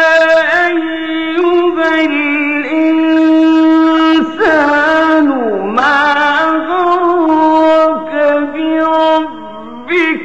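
A man's voice in melodic Quran recitation, drawing out long held notes with ornamented, wavering turns. About four and a half seconds in the pitch swoops down and back up.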